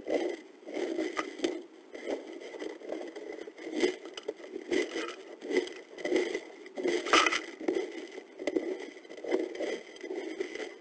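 Mexican gray wolves shuffling and pawing about in wood-chip bedding, making irregular scraping, rustling and crackling, with one louder crackle about seven seconds in.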